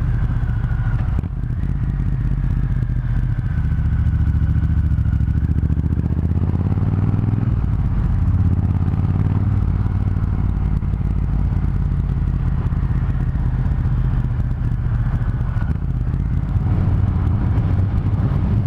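Triumph Thunderbird Storm's big parallel-twin engine running steadily under way. Its revs climb for a few seconds about a quarter of the way in, then settle.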